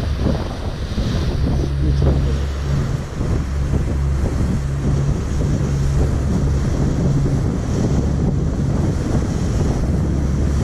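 Wind buffeting the microphone aboard a moving ferry, over the rush of the sea and a steady low engine drone.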